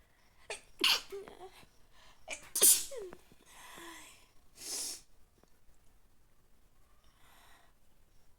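A person sneezing twice, about two seconds apart, each sneeze preceded by a quick intake of breath. A few shorter, fainter breathy noises follow.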